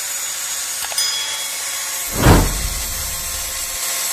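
Electric angle grinder running steadily against a small metal bracket held in locking pliers, grinding it down. A brief loud bump comes about two seconds in.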